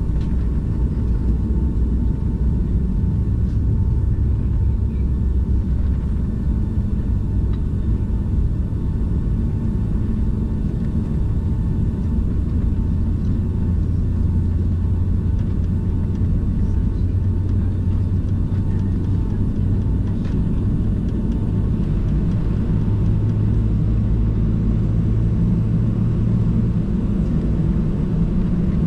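Cabin noise of a passenger jet airliner taxiing: a steady low rumble from the engines at taxi power, with a faint steady whine above it.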